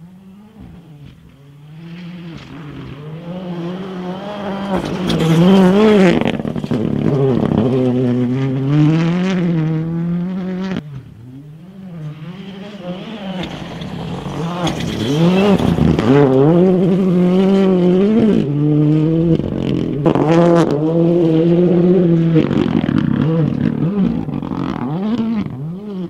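M-Sport Ford Fiesta Rally2's turbocharged 1.6-litre three-cylinder engine at full throttle on gravel, its pitch rising and falling over and over through throttle lifts and gear changes as the car approaches and passes. The sound drops off about eleven seconds in, then builds again for a second pass.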